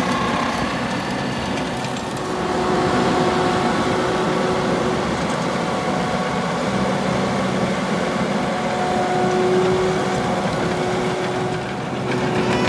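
Farm tractor engine running steadily, with a constant drone and an even whine held through, as it works the field.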